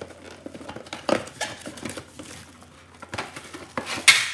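A cardboard box being opened and handled, and the plastic-wrapped metal parts of a single-burner propane camping stove rattling and clinking as they are pulled out, with scattered clicks and a sharp clatter near the end.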